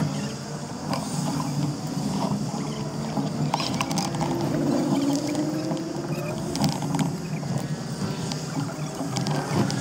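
A vehicle on the move: engine running steadily with road and wind noise, its pitch slowly rising and falling, and scattered light knocks.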